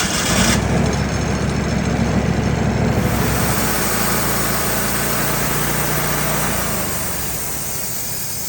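Portable sawmill engine running steadily at operating speed, which a tachometer check confirms is exactly the RPM it should be. The sound eases off a little near the end.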